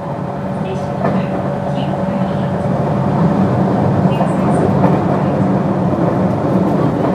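JR West 221 series electric train with field-added excitation control running along the line: a steady low hum of motors and wheels with a thin steady tone above it, growing gradually louder.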